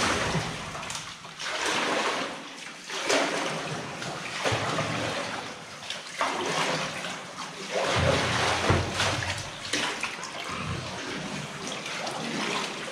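Paddle strokes from an inflatable boat in still water: a splash and trickle of drips with each stroke, about one stroke every second or two.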